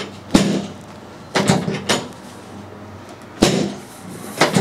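Chiropractic drop table's pelvic drop section snapping down under the chiropractor's thrusts, four sharp clunks about a second apart, some with a quick double rattle. These are drop-technique adjustments to the left sacroiliac joint.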